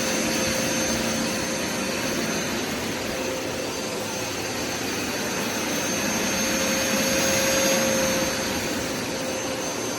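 Hoover Smartwash FH52000 carpet cleaner running steadily, its suction motor giving a constant rushing noise with a steady high whine.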